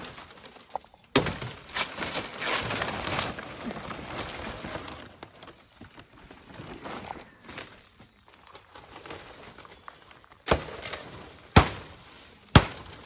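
Fan palm fronds rustling and swishing as they are pulled and handled. Near the end come three sharp cracks about a second apart as a frond's stalk is cut.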